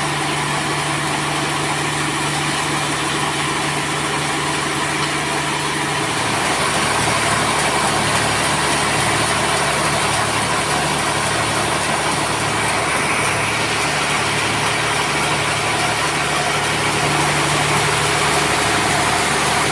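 Sawmill machinery running steadily with a constant low engine hum; about six seconds in it grows louder and fuller, with a low even pulsing.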